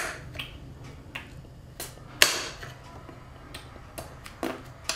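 A kitchen knife slicing button mushrooms on a glass chopping board, the blade clicking sharply on the glass every second or so, loudest a little over two seconds in.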